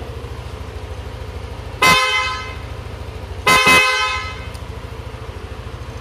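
Aftermarket loud horn on a Yamaha Aerox scooter sounding two short blasts about one and a half seconds apart, each trailing off.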